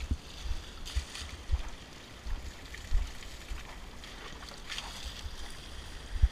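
Splashing of buckets of river water thrown over an elephant and sloshing in the shallow river, with repeated low knocks on the microphone.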